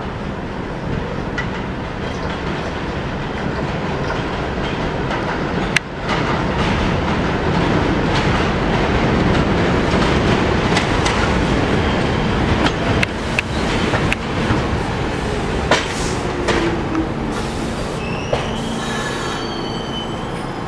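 R46 subway train pulling into an elevated station: a steady rumble of wheels on the rails with sharp clacks over rail joints. It gets louder about six seconds in as the cars come alongside, and there is a short high squeal as it brakes to a stop near the end.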